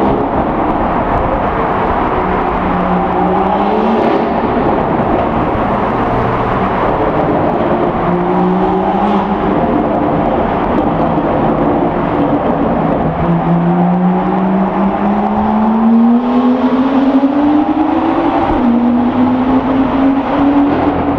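BMW M2 (F87) with aftermarket downpipes, its turbocharged 3.0-litre straight-six exhaust running loud under acceleration. The engine note climbs slowly in long pulls, drops back with a gear change near the end, and climbs again.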